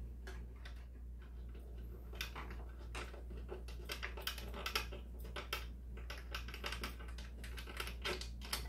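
Irregular light clicks and taps of hands working the PRC-77 radio's metal case after its five case screws are out, coming more often from about two seconds in, over a low steady hum.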